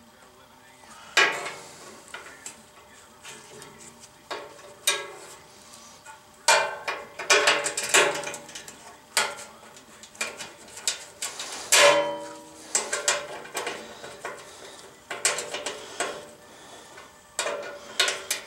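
Metal parts clinking and knocking as a steel bolt, washer and small aluminum spacer block are handled and fitted against a metal lathe, irregular sharp clinks, some ringing briefly. The loudest knocks come about a second in and near twelve seconds, with a busy run of clinks in between.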